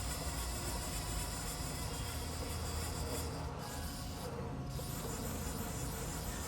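Haas TL-2 CNC lathe's Z axis traversing back and forth under its servo drive: a steady whine over a low electrical hum, with the higher hiss dropping out briefly twice around the middle.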